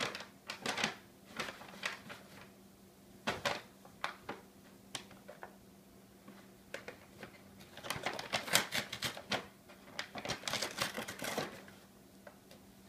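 Brown paper bag crackling and rustling as a cat with its head inside it shifts and paws about, in scattered bursts with a longer busy spell past the middle.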